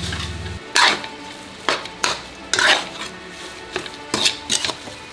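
Spatula scraping and stirring sweetened shredded-coconut filling in a hot pan, in irregular strokes a couple of times a second, with a faint sizzle between them. The filling is being half-cooked before it goes into the bread.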